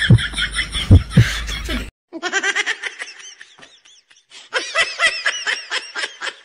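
Music with heavy drum beats stops abruptly after about two seconds. A run of high-pitched giggling laughter follows in quick bursts, several a second, with a short lull in the middle.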